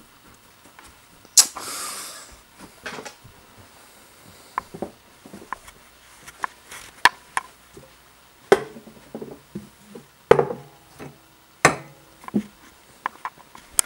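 Scattered light knocks and clicks of things being handled, with a short burst of rustling about a second and a half in.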